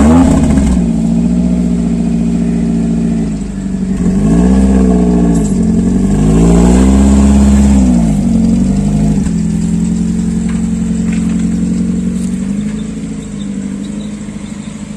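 Modified Maruti Gypsy's four-cylinder engine revved in a few blips through its aftermarket side-exit twin-tip exhaust, then settling into a steady idle.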